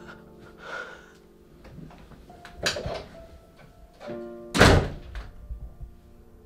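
Soft piano score with two sudden thumps, the louder one about four and a half seconds in.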